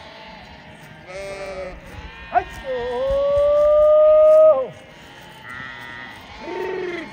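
Sheep bleating: a few short bleats, then one loud, long, steady bleat lasting about two seconds in the middle, and more bleats near the end.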